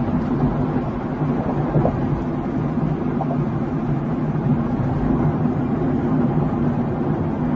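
Vehicle engine and tyre noise heard from inside the cab: a steady low drone over a hiss of tyres on a wet road.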